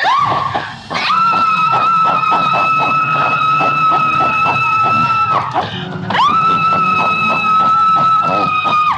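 A woman screaming: two long, high, steady screams that each start with a quick upward swoop, the second beginning about six seconds in. Fast rhythmic music plays underneath.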